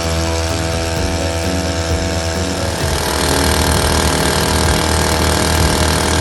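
Small 2 HP weed-cutter engine powering an inflatable boat's outboard drive, running steadily. About halfway through it picks up speed and gets louder.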